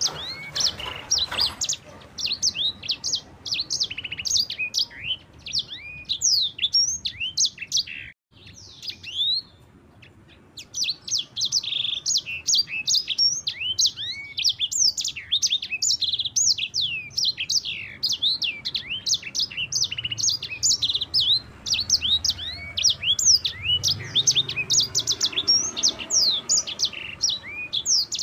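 Yellow-fronted canary (the 'sanger' Mozambique canary) singing a long, continuous rolling song of rapid, clear, sweeping whistled notes. The song breaks off briefly about eight seconds in, then resumes.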